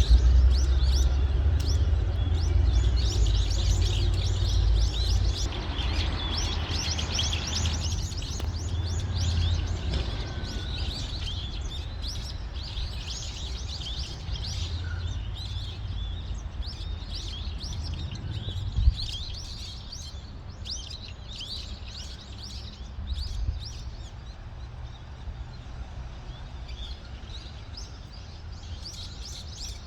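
Small birds chirping and twittering continuously, many short high calls overlapping. Underneath runs a low rumble that is louder in the first half and fades, and a single sharp knock sounds a little past the middle.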